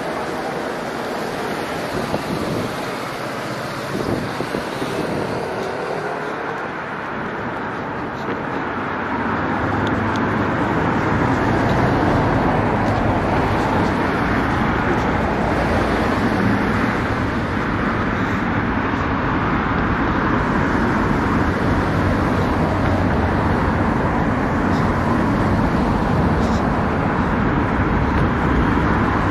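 Road traffic: cars driving past with a steady hum of tyres and engines, growing louder about nine seconds in and staying up as vehicles pass close by.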